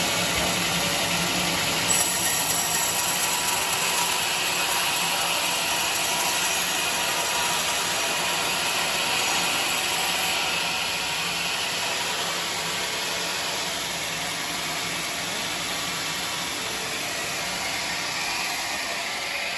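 Homemade band sawmill running steadily while sawing a teak log, a continuous mechanical noise with a hissing edge. The hiss brightens about two seconds in and eases off after about ten seconds.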